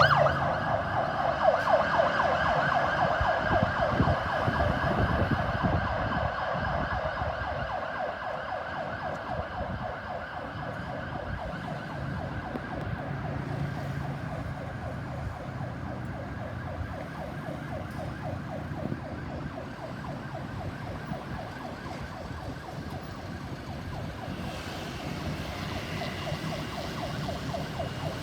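Ambulance siren in a fast warble, loud at first and fading as it moves away, then growing slightly louder again near the end, over low traffic rumble.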